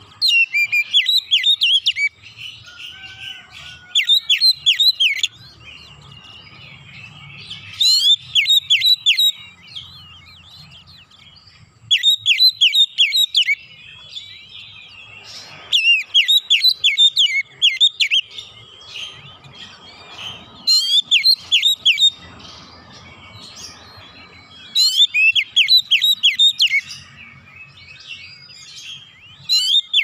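Oriental magpie-robin (kacer) singing in loud bursts of rapid, sharp repeated notes, the 'nembak' delivery prized by Indonesian bird keepers. Each burst lasts a second or so and comes every three to four seconds, with softer twittering in between.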